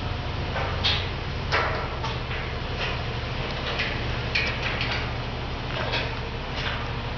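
Hand ratchet wrenches clicking in short, irregular runs as bolts are tightened overhead into a steel lifting frame, over a steady low hum.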